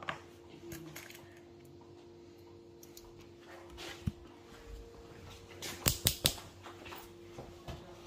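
Scattered clicks and knocks of tools and parts being handled and the camera being picked up and moved, the loudest three sharp clicks close together about six seconds in, over a steady low hum.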